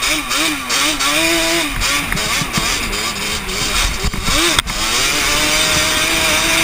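Quad bike engine running under way, its pitch repeatedly rising and falling with the throttle, over a rush of wind on the helmet-mounted camera. A single sharp knock comes about two-thirds of the way through.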